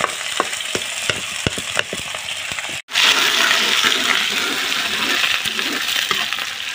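Chopped onions sizzling in hot oil in a metal kadai while a metal ladle stirs them, with sharp ticks in the first couple of seconds. The sound cuts out for an instant about three seconds in.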